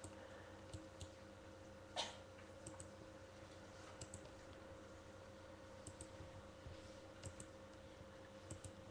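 Near silence: room tone with a steady faint hum and a few faint scattered clicks, one more distinct about two seconds in.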